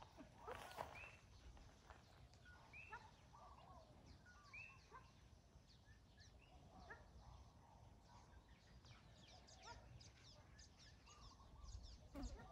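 Faint outdoor ambience with scattered bird calls: short chirps and repeated arched calls, over a low rumble.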